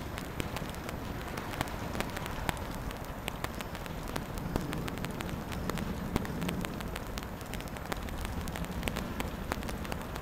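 Steady rain falling, a constant hiss dotted with many sharp, irregular drop hits close by.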